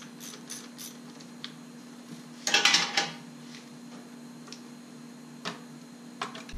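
Light metallic clicks and clinks of a 10 mm wrench loosening the car battery's positive terminal clamp, with a louder rattling clatter of metal about two and a half seconds in.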